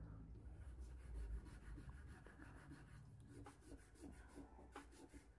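Faint scratching of a charcoal stick drawing lines on paper, with several short strokes in the second half.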